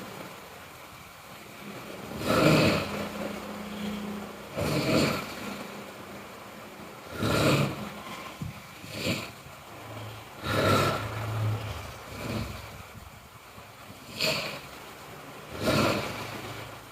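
A person snoring: about eight harsh, rasping snores, one every two seconds or so, with a low steady hum between them.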